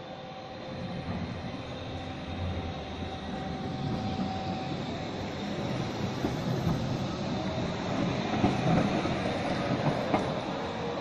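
Electric city tram running on its rails, its rumble growing louder, with a steady whine that drops out about halfway and a few sharp wheel clacks near the end.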